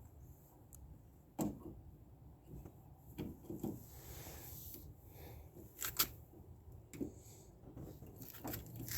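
Scattered sharp clicks and knocks of 2015 Nissan Rogue exterior door handle parts being handled and pushed into place, the loudest about a second and a half in and another at six seconds.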